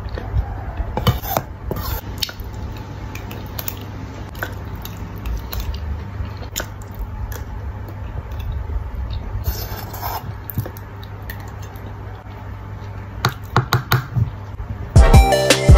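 Metal spoon clinking and scraping against a stainless-steel pot as pasta is scooped out, with a quick run of sharp clinks as the pot is scraped empty near the end. Loud music comes in just before the end.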